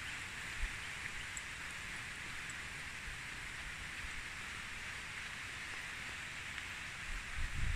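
Steady, even hiss of outdoor background noise with no distinct events. A low rumble builds right at the end.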